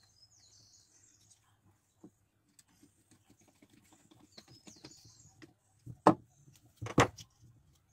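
Small screwdriver turning a screw into the steel plate of a home-made engraver's vise, with faint ticks and light scraping. Two louder knocks of metal on wood near the end as the parts are handled.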